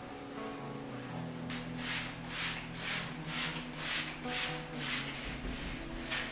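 Cloth wiping a wood-veneer cabinet door in brisk back-and-forth strokes, about two a second, over soft background music.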